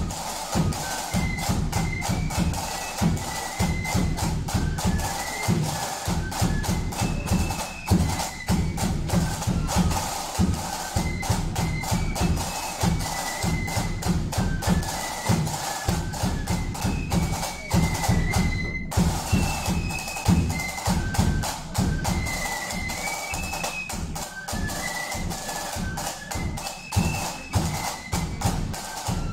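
A flute band playing a tune: a line of flutes carrying the melody over a bass drum and side drums beating steadily. The sound cuts out for a moment about two-thirds of the way in.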